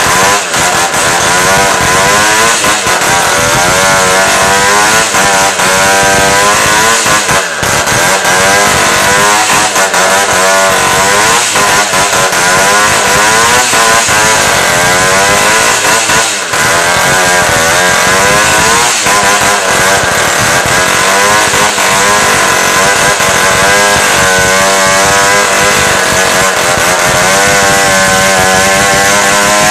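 Petrol chainsaw running hard while cutting into a tree stump, its engine speed rising and falling over and over as the chain bites and eases in the wood. The sound dips briefly about seven and sixteen seconds in.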